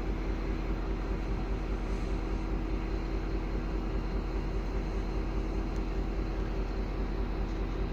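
V/Line N-class diesel-electric locomotive running steadily with a constant engine hum and deep rumble.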